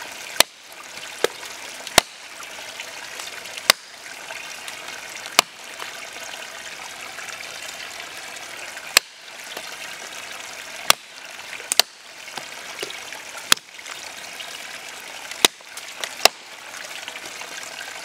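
Condor Hudson Bay large survival knife, 8.5-inch 1075 carbon steel blade, chopping through a thin stick laid on a log: about a dozen sharp chops at uneven intervals, each aimed at cutting the stick in one blow. A steady trickling, like running water, sits behind the chops.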